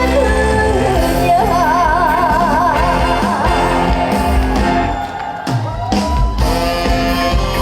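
A trot song performed live over a backing band track. A singer holds a long note with wide, even vibrato for about two and a half seconds, starting about a second and a half in, then the instrumental accompaniment carries on.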